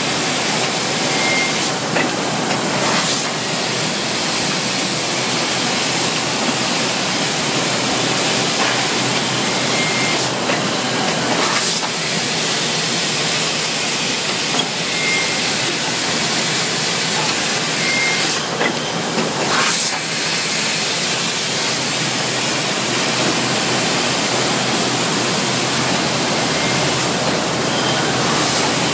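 SOLUPACK bag-filling and sealing machine running in a loud, steady hiss. About every eight and a half seconds, four times in all, a brief rush of air and a click mark one machine cycle as another 7 kg bag of hot-filled tomato concentrate is sealed and released.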